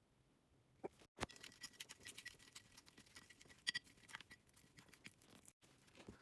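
Crunchy slime being poked and pressed with fingers, giving soft, quick crackles and little pops, densest through the middle with one louder crackle about halfway through.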